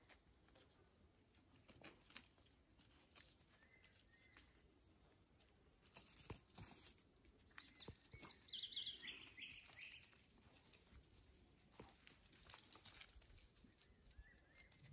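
Faint scuffling and scattered clicks of dogs' paws on gravel and dirt. About eight seconds in comes a short run of high chirps, the loudest sound here, with a few fainter chirps elsewhere.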